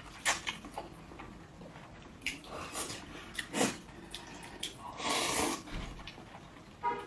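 Close-miked eating sounds: scattered wet mouth smacks and clicks while chewing, with a longer noisy slurp about five seconds in.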